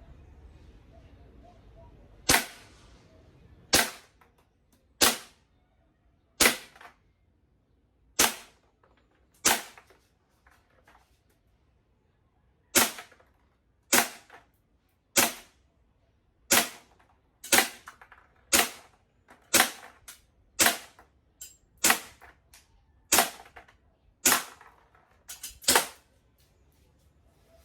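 WE T-Rex Hi-Capa green-gas blowback airsoft pistol firing about twenty single shots, roughly one a second, with a short pause about ten seconds in; each shot is a sharp crack.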